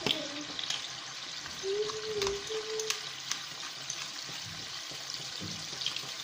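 Chicken pieces frying in oil with garlic and onions: a steady sizzle, with a few sharp clicks of a utensil stirring against the pan.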